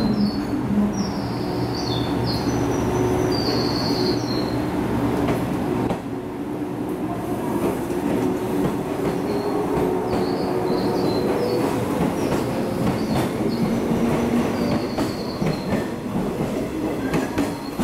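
A JR 115 series 3000 subseries electric multiple unit pulls out of the station, its traction motors whining in a slowly rising tone as it gathers speed. Near the end the wheels click over the rail joints as the cars pass.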